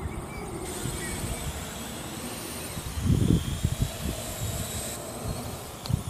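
Parrot AR.Drone quadcopter's electric rotors whirring in flight, with a high motor whine that grows clearer about a second in. Low buffeting on the microphone, loudest about three seconds in.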